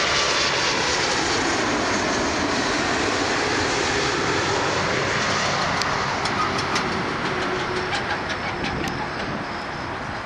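Air France Boeing 777-200ER's twin GE90 turbofans roaring as the jet passes close by, the jet noise fading over the last few seconds.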